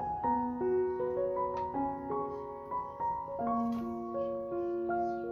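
Background piano music, a simple melody of single notes over held chords.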